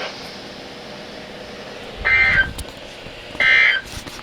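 EAS end-of-message data bursts (the SAME 'NNNN' code) over NOAA Weather Radio: steady receiver hiss, then two short digital data bursts about a second and a half apart, marking the end of the weekly test message.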